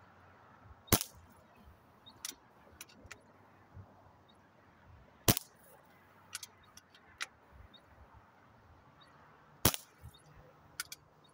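Benjamin Marauder PCP air pistol firing .22 pellets: three sharp cracks about four seconds apart, the first about a second in and the last near the end. Fainter clicks and knocks fall between the shots.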